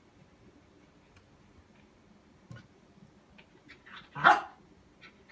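A dog barks once, short and loud, about four seconds in, just after a softer yap. Before it there are only a few faint ticks over a low background.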